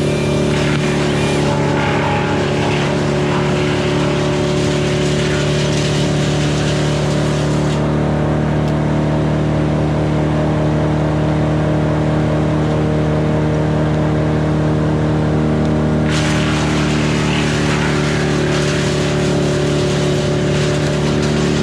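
A motor running steadily with an even hum. A hiss over it drops away for about eight seconds midway, then returns.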